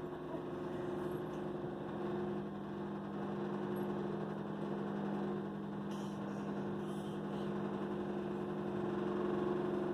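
A steady low hum over faint background noise, with a couple of faint soft taps about six and seven seconds in.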